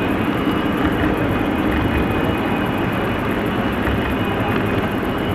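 O scale model intermodal train rolling past on three-rail track: a steady rumble of metal wheels on the rails, with a low hum underneath.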